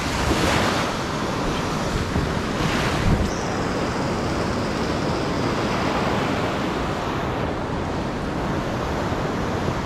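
Ocean surf breaking and washing up the beach in a steady roar that swells a couple of times, with wind rumbling on the microphone.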